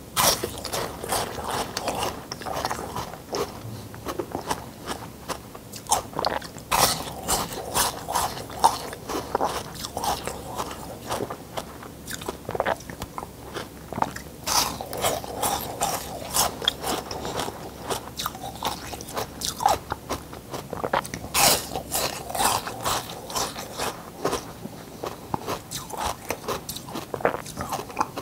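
Ice being bitten and chewed: a run of sharp, crackling crunches at an uneven pace, some much louder than others.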